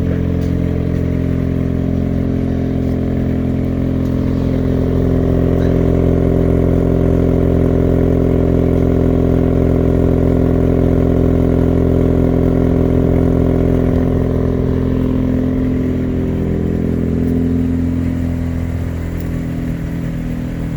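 Mazda RX-8's naturally aspirated twin-rotor Renesis rotary engine idling, heard through its exhaust: a steady, even drone that swells a little in the middle and eases slightly near the end.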